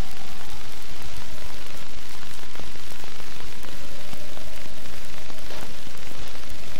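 Steady hiss and crackle of an old film soundtrack, with a faint wavering tone that drifts slowly up and down beneath it.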